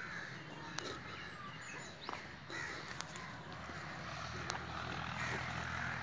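Crows cawing among other birds' calls, over a faint low steady rumble that grows a little stronger in the second half.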